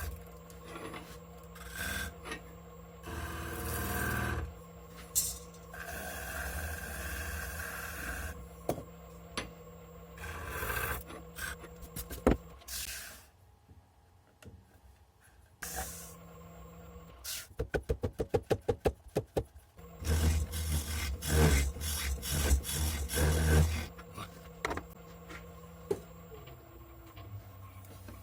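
Hand work on a tool handle: filing and rubbing strokes, with a quick run of rapid strokes about two-thirds of the way through and then a louder stretch of low rumbling.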